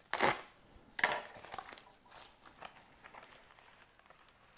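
Plastic bubble mailer crinkling as it is opened: two loud crackles about a second apart, then softer scattered crinkling.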